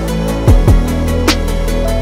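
Background music with a drum beat: deep kick drums that drop in pitch, sharp snare hits and held bass notes.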